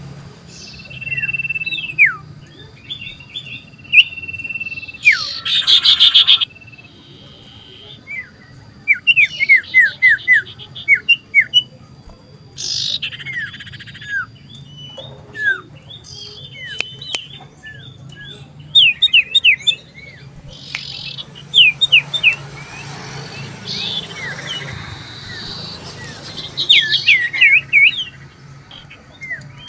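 Common iora (cipoh) singing loudly, in repeated runs of quick downward-slurred whistles broken by a few short harsh notes, the full song of a bird calling out to a rival. A faint steady low hum runs underneath.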